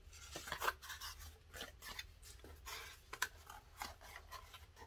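Cardboard pieces being pushed into a small wooden box: faint, scattered scrapes and light taps.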